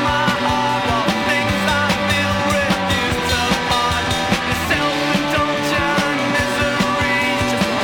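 Rock music with a steady beat, bass, guitars and what may be singing.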